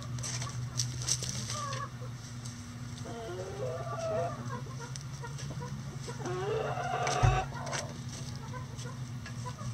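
Backyard chickens clucking and calling, with two drawn-out, wavering calls, one about three seconds in and one about six seconds in. A steady low hum runs underneath, and a brief low thump comes a little after seven seconds.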